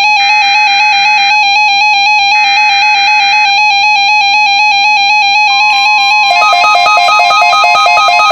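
Loud synthesizer music in a rapid, evenly stepping pattern, with two bursts of EAS SAME header data tones about a second long and a second apart. These are the digital code that opens a NOAA Weather Radio Required Weekly Test. A steady tone joins about two thirds of the way in, and the music grows denser.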